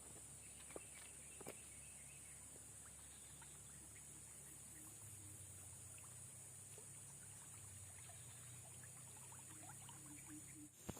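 Near silence: faint outdoor ambience with a steady high-pitched hiss and a few faint clicks.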